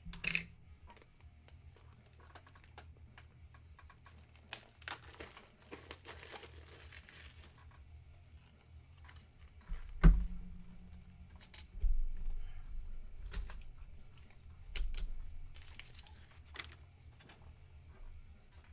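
Plastic wrapping crinkling and being torn open, with scattered small clicks of handling, then a few dull thumps on the table, the loudest about ten seconds in.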